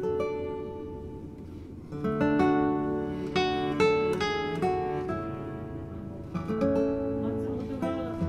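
Background music of acoustic guitar, picking single notes, with fuller strummed chords about two seconds in and again near the end.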